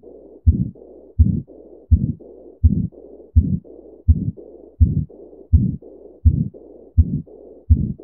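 Auscultation recording of a patent ductus arteriosus: heartbeats about every 0.7 seconds with a continuous "machinery" murmur running without a break through systole and diastole. The murmur is the sign of blood flowing from the aorta into the pulmonary artery throughout the cardiac cycle.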